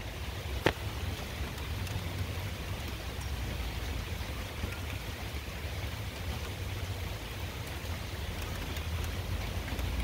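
Turbocharged 7.3-litre Ford IDI diesel V8 of a 1988 F-250 idling steadily, with a low pulsing throb; the engine is knocking and has a leaking high-pressure fuel line. A single sharp click less than a second in.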